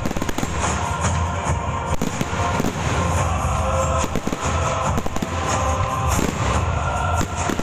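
Aerial fireworks shells bursting with repeated sharp bangs and crackles, heard over loud show music playing throughout.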